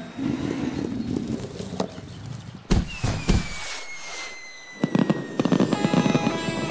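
Cartoon fireworks sound effects: two sharp launch thumps about three seconds in, a whistle falling slowly in pitch as the rockets rise, then a rapid run of bangs and crackling as they burst near the end.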